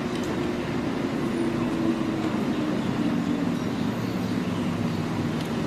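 Steady background road-traffic noise with a low engine hum that dips slightly in pitch after the middle.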